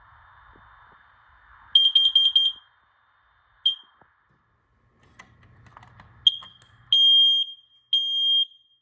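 Kidde combination smoke and carbon-monoxide alarm sounding during a test: a quick run of short, high-pitched beeps about two seconds in, a single chirp, then the alarm pattern begins with long, loud beeps about half a second each, roughly a second apart.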